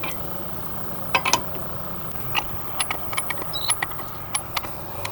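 Scattered sharp metallic clicks and clinks at irregular intervals from a hand wrench working an open-ended lug nut, tightening it to draw a new wheel stud into the rear hub against brake-disc spacers.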